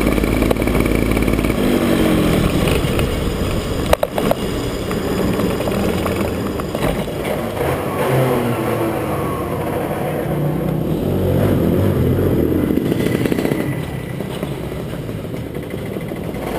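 BMB KF2 125 cc two-stroke kart engine running at low revs, its pitch rising and falling in short blips, then a little quieter over the last few seconds. A sharp knock sounds about four seconds in.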